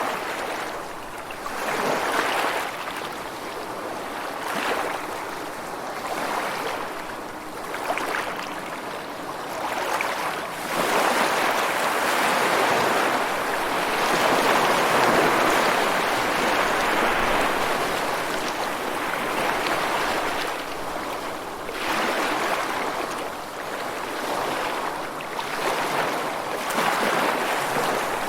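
Rushing water, a steady hiss that swells and eases every few seconds.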